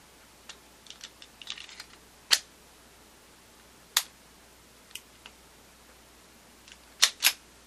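Metal clicks and snaps from handling a Sig Sauer P238 .380 ACP pistol and its magazine: a flurry of light clicks, then a few sharp single clicks, and two loud snaps in quick succession near the end as the slide is worked by hand.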